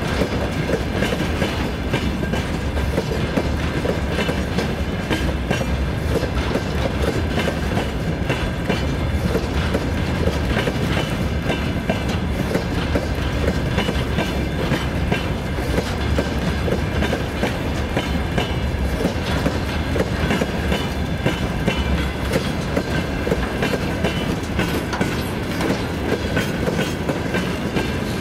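Freight wagons (covered hopper cars, then tank cars) rolling steadily past close by, their wheels clattering over the rail joints in a continuous run of clicks and knocks.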